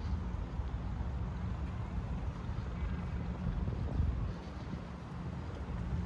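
Steady low rumble of outdoor city ambience, with wind buffeting the phone's microphone.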